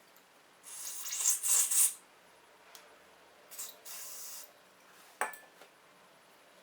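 Two hissing blasts of an aerosol spray, the first longer and louder, used to flush the engine's hydraulic valve lifters, followed by a single sharp click.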